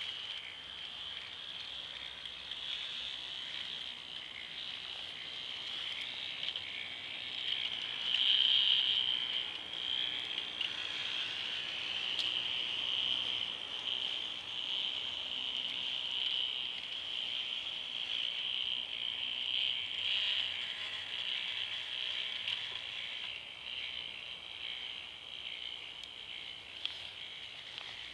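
K'NEX model car's small electric drive motors and plastic gear train running with a steady high-pitched whine that swells and fades a little as the car moves about.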